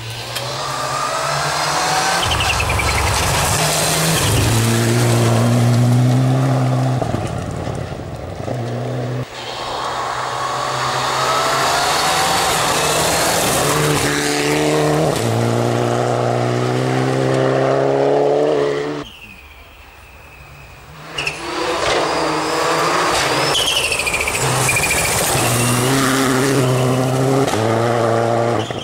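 Rally car engines at full throttle, accelerating hard through repeated gear changes. The sound drops away briefly about two-thirds through, then a car is at full throttle again.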